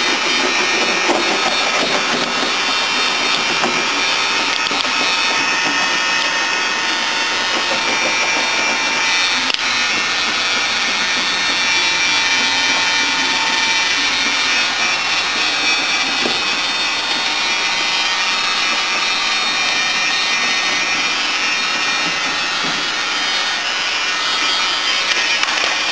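Handheld heat gun blowing steadily, a continuous hissing rush with a faint motor whine, warming self-adhesive sound-deadening mat so it sticks better.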